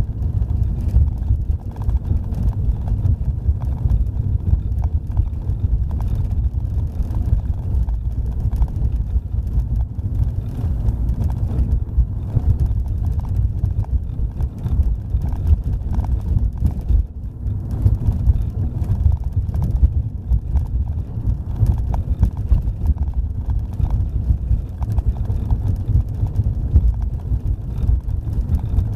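Car driving along a road: a steady low rumble of road and wind noise, with frequent small knocks and rattles.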